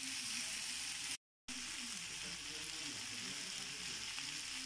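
Beef, bell peppers and onion sizzling steadily in a frying pan. The sound cuts out completely for a moment about a second in.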